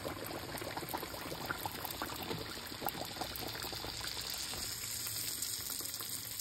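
Raw dough pie with potato filling, just lowered into hot oil in a wok, deep-frying: a steady sizzle dense with tiny crackles and pops as the oil bubbles around the dough.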